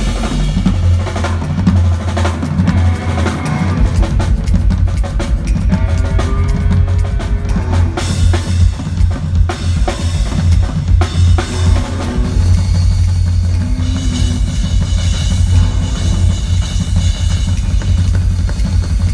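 Rock band playing live at full volume during a sound check, the drum kit loudest, with kick and snare driving a steady beat over sustained bass and guitar.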